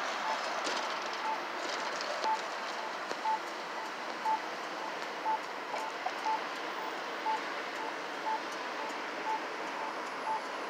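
Electronic railroad crossing bell at a light-rail grade crossing, dinging steadily about once a second over a background of road traffic noise.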